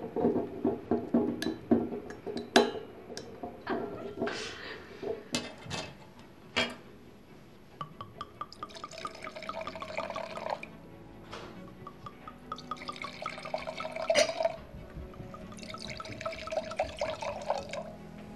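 A waiter's corkscrew drawing a cork from a wine bottle, a run of sharp clicks and knocks over the first several seconds. Then white wine is poured into three stemmed wine glasses, three separate pours of a couple of seconds each, splashing into the glass.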